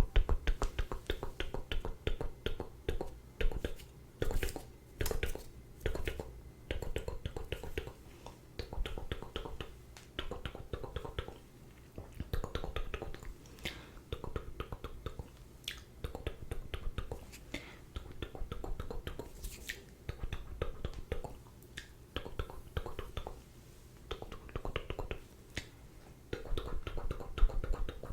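Close-miked ASMR mouth sounds: quick wet clicks, smacks and tongue pops in rapid clusters with short pauses between them.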